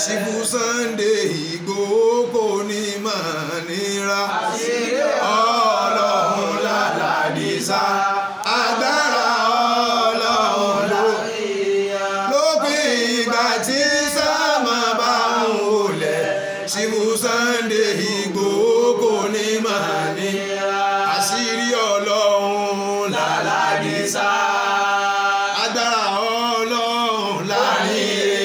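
A man chanting a song, his voice sliding up and down in long, drawn-out melodic phrases.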